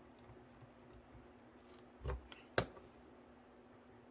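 Small clicks and taps of tools and small parts being handled while disassembling an HO-scale model locomotive, with a soft knock about two seconds in and a sharp click half a second later, over a faint steady hum.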